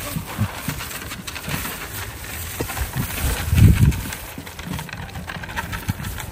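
Young Nigerian dwarf goats feeding at plastic feed pans: irregular knocks, clicks and shuffling, loudest about three and a half seconds in.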